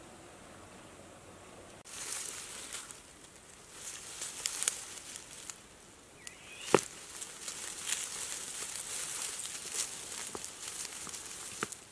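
Dry grass crackling and rustling as tortoises push through it, with scattered sharp snaps, the loudest about seven seconds in. For the first two seconds there is only faint outdoor ambience.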